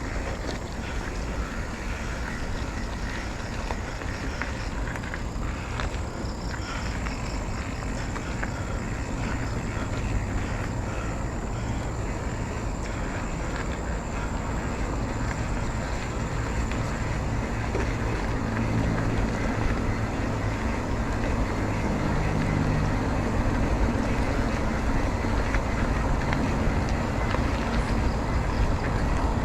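Motorcycle engine running under way, mixed with steady wind and road rush. The engine hum grows gradually louder through the second half.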